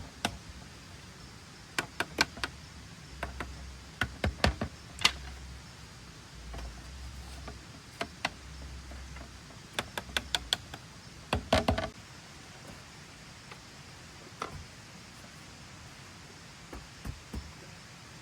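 Irregular sharp knocks and taps in small groups of two to five, typical of hand work on wood or bamboo, coming thickly at first and then only now and then. A low rumble sits underneath and stops about two-thirds of the way through.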